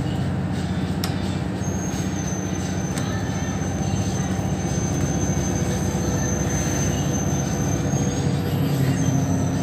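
Cabin sound of a Mercedes-Benz Citaro O530 city bus under way: the diesel engine and drivetrain hum steadily over road noise. A thin high whine sets in about a second and a half in, drops out near the end and comes back.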